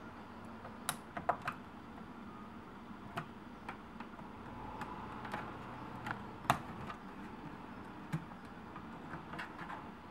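Irregular light clicks and taps of a small screwdriver and fingers on a laptop's keyboard keys, with the sharpest click about six and a half seconds in.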